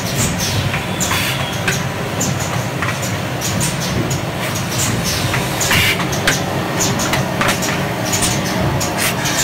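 ZH-200 automatic slipcase making machine running: a steady mechanical hum with frequent, irregular sharp clacks from its moving parts.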